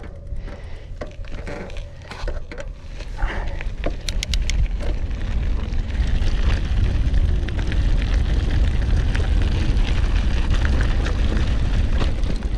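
Mountain bike being ridden over a rough track: tyres crunching and the bike clicking and rattling, with wind rumbling on the microphone that gets louder about halfway through as speed picks up.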